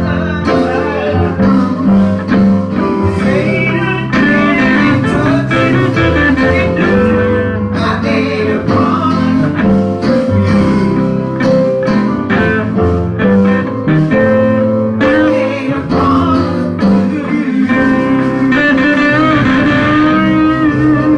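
Live gospel band music led by guitar, with a steady beat.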